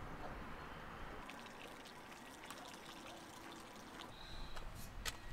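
Faint trickle of water from an outdoor tap filling a plastic jerrycan, with a few faint clicks later on.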